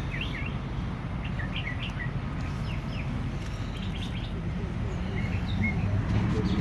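Birds chirping: short, scattered high calls over a steady low rumble.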